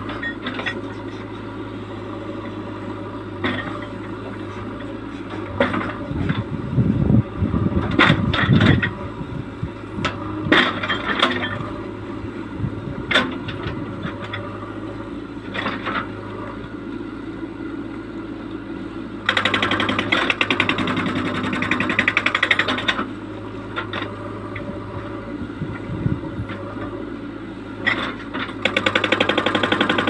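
JCB 3DX backhoe loader's diesel engine running steadily while its bucket works into a rocky slope, with rocks knocking and clattering many times, most densely about a quarter of the way in. The engine grows louder and harsher for a few seconds past the middle and again near the end.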